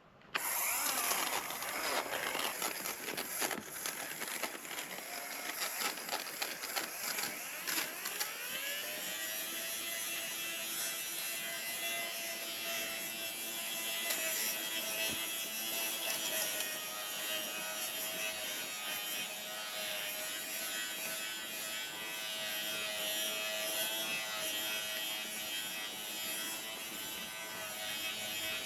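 Small electric fabric shaver (clothing pill remover) running over a pilled throw-pillow ruffle, its blades crackling as they cut the pills in the first several seconds. Its motor pitch rises about eight seconds in, then it hums steadily.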